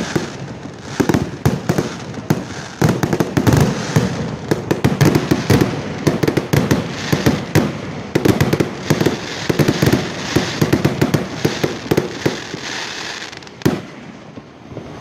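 Fireworks display: a rapid barrage of aerial shells bursting and crackling, many bangs a second, thinning out near the end with one last bang.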